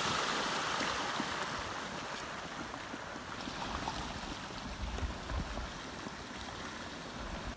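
Flash-flood front with a debris plug of sticks, branches and pine cones advancing down a dry desert wash: a steady rushing of muddy water that slowly fades. A brief low buffet of wind on the microphone about five seconds in.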